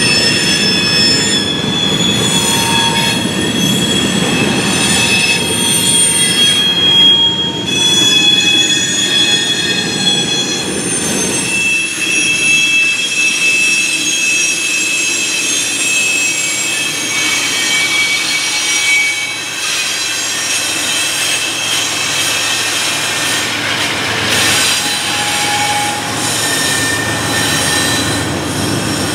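Coal hopper cars rolling past with their steel wheels squealing, several high squeal tones overlapping and wavering over a steady rolling rumble. Near the end a diesel locomotive pushing at the rear of the train comes up, adding a heavier low rumble.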